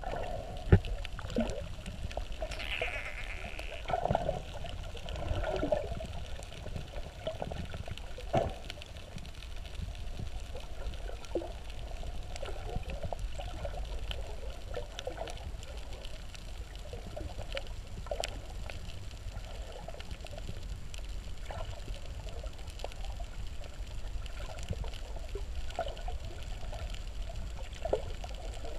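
Muffled underwater sound picked up by a submerged camera: a steady low rumble with irregular gurgles and scattered clicks. There are a few sharp knocks, the loudest about a second in and another about eight seconds in.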